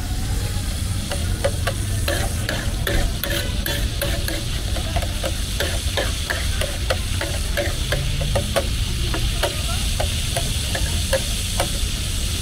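A metal spatula scrapes and clacks again and again on a large flat metal tawa as liver pieces are stirred and fried, with a steady sizzle of the liver frying in oil underneath.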